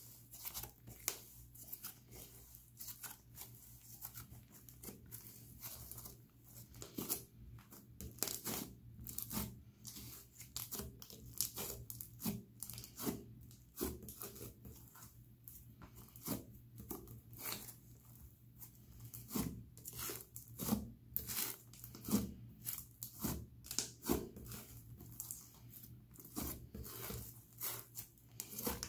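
Thick, doughy slime being kneaded, pressed and stretched by hand: a run of irregular sticky crackles and small pops, with tearing sounds as the slime pulls apart.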